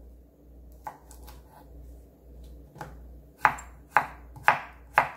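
Kitchen knife slicing a cucumber on a wooden cutting board: a few faint taps at first, then from about three and a half seconds in a run of sharp chops of the blade striking the board, about two a second.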